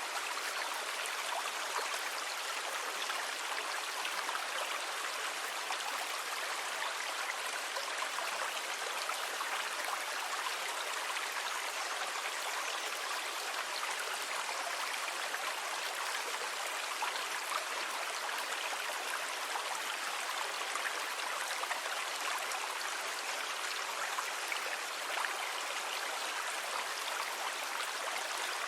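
Water rushing steadily: an even hiss with no rise and fall of breaking waves.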